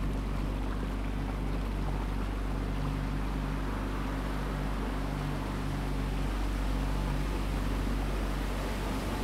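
A motorboat's engine running steadily at low speed, a constant low hum, with the wash of water along the hull.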